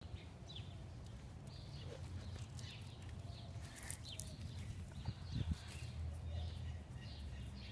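Faint outdoor ambience: scattered short bird chirps over a steady low rumble.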